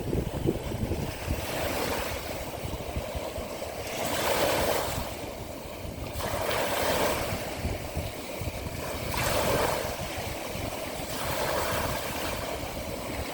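Small sea waves washing onto the shore, a surge every two to three seconds, over a steady low rumble of wind on the microphone.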